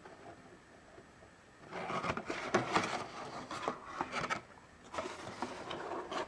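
Cardboard packaging being handled and slid about, rubbing and scraping with small knocks. This comes in two spells, the first starting a little under two seconds in and the second near the end.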